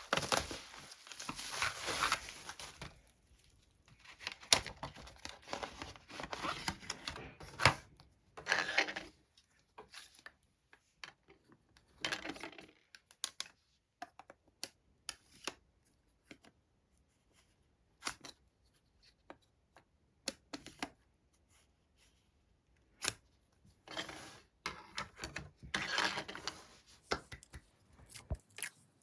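Parcel packaging being opened by hand: tape and plastic wrapping tearing and crinkling in bursts, between scattered clicks and taps of items being handled.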